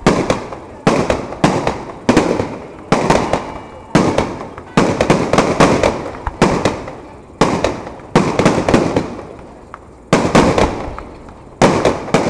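Fireworks display, with shells bursting in quick succession. A loud bang comes roughly every half second to one second, each followed by a fading echo, with a short lull about nine seconds in.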